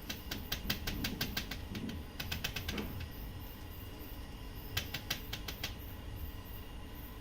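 Rapid runs of small sharp clicks and taps from hand work on the plastic parts of a copier's toner-clogged waste toner unit: a burst of about three seconds, then a shorter one about five seconds in.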